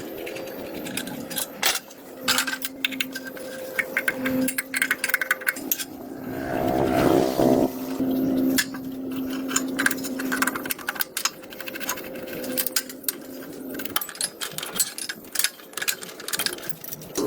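Rapid metallic clicks and rattles, like small tools and parts being handled and worked, over a steady hum that swells about six seconds in.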